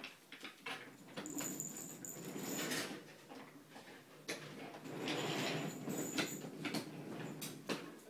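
Wooden toy trains being pushed along a wooden track: many quick clicks and clacks of the wooden cars, with two longer stretches of rolling rumble, about a second in and around five seconds in.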